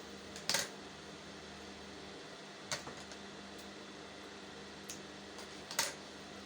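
Three brief sharp clicks or rustles from handling fabric and tools at a sewing table, about half a second in, near the middle and near the end, over a steady low hum.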